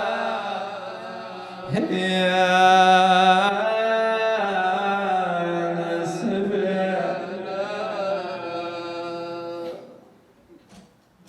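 A man's solo voice chanting a Shia mourning lament in long, wavering held notes with ornamented turns. The chant ends near the end, leaving only faint small sounds.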